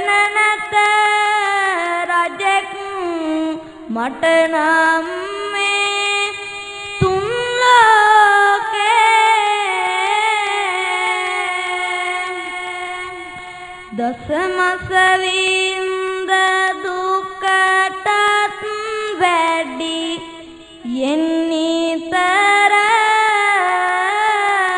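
A young boy monk's voice singing kavi bana, Sinhala Buddhist sermon verse, as a slow solo chant of long held notes that glide between pitches, with short breaks between phrases.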